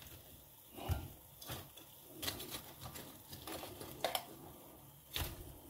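Metal kitchen tongs giving a few faint, scattered clicks and taps while picking up sauce-coated chicken wings spilled on an enamel electric stovetop.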